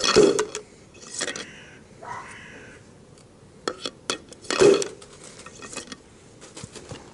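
Metal clinks and clunks as 40mm airsoft grenade shells are handled and slid into the barrel of a Type 89 knee mortar replica. Two louder clunks, one right at the start and one about halfway, with small clicks between.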